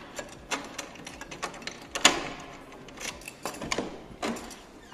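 A hotel room door being unlocked with a key and opened: a run of irregular clicks and knocks, the loudest about two seconds in and another just after four seconds.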